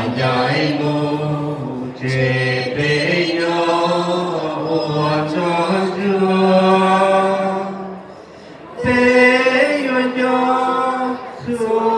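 A mixed group of men and women singing a slow song together from song sheets, led by a man singing into a microphone. The notes are held long, with a short break for breath about eight seconds in.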